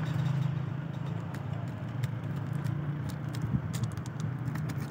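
A steady low mechanical hum, with scattered sharp clicks over the last three seconds.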